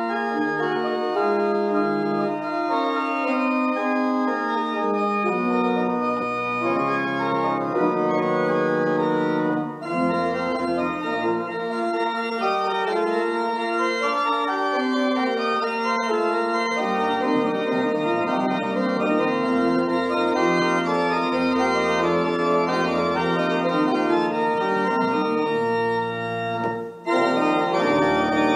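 Church organ playing a lively prelude in full sustained chords, with deep pedal bass notes joining about five seconds in and a brief break between phrases near the end.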